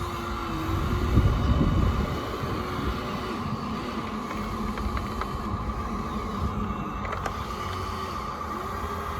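Small electric motors and gearing of radio-controlled toy construction machines, whining up and down in pitch in short spells over a steady high hum. A louder rumbling stretch comes about a second in.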